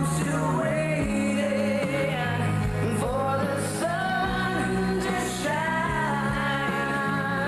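Rock ballad playing, with a lead singer holding long sung lines over bass and drums.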